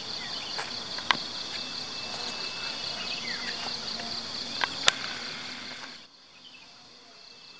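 Insects calling steadily in a high, finely pulsing chorus, with two sharp clicks, about a second in and near five seconds in. The chorus cuts off suddenly about six seconds in and the sound drops much quieter.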